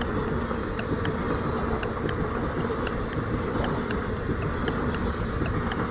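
Clock-ticking countdown sound effect, about two sharp ticks a second, over a steady rumble of a moving train.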